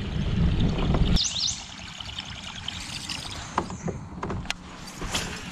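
A low rumble that cuts off abruptly about a second in, then a bird's short chirps and a few scattered light clicks.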